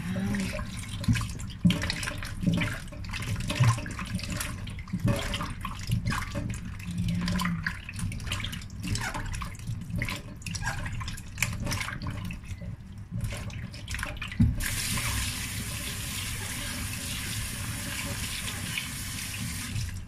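Hands mixing and squeezing shiitake mushrooms with cornstarch in a metal pot, with irregular clicks and knocks against the pot. About fifteen seconds in, a tap starts running steadily into the pot to soak them.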